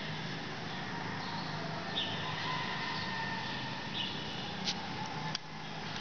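Steady background hiss and low hum of a large open-sided hall, with a few short, high, falling chirps of small birds and a sharp tick near the end.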